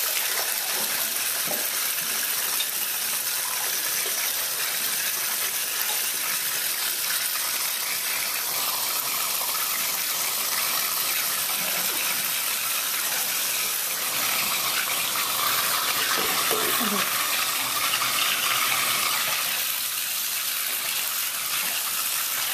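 Water running steadily into a bathtub from the tap, a constant splashing hiss.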